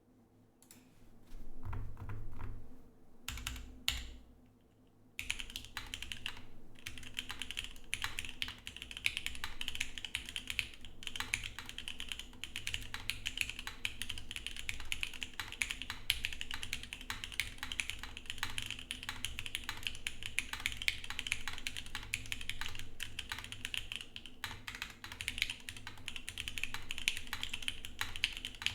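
Geonworks F1-8X mechanical keyboard with an aluminum plate, lubed SP-Star Luminos switches and CRP keycaps being typed on. A few scattered key clicks and low thumps come first, then fast, continuous typing from about five seconds in.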